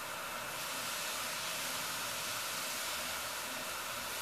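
Hot-air rework station's nozzle blowing a steady hiss of hot air, airflow set a little over 4, onto a pen drive's controller chip to melt its solder and lift it off the board. The hiss grows a little brighter about half a second in.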